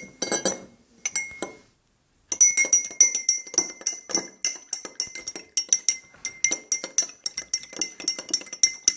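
A spoon stirring fast in a drinking glass, clinking against the glass wall with a bright ring on each strike. A few clinks come first, then a short pause, then steady rapid clinking at about four a second from about two seconds in, as the liquid is whipped into a whirlpool.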